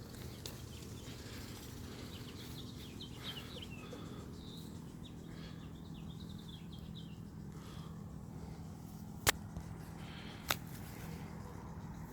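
Steady low hum of honeybees around the opened hive, with birds chirping in the background during the first few seconds. Two sharp clicks about a second apart near the end are the loudest sounds.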